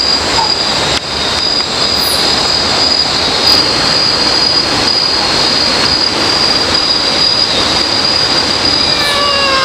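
Night forest ambience: insects shrilling in one steady high-pitched drone over a constant hiss. Near the end comes a short call that falls in pitch.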